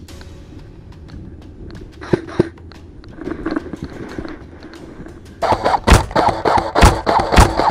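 Footsteps crunching in snow with two sharp clicks about two seconds in. At about five and a half seconds, loud edited-in music with heavy beats starts and covers everything.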